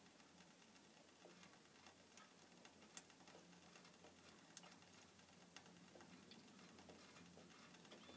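Near silence: faint outdoor ambience with a few small, sharp ticks scattered through it.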